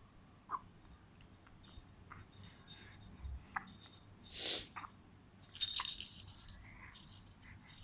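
Baby's rattle toy clinking and jingling in short, scattered bursts, with a denser jingle just before six seconds. A louder, breathy burst lasts about half a second, about four and a half seconds in.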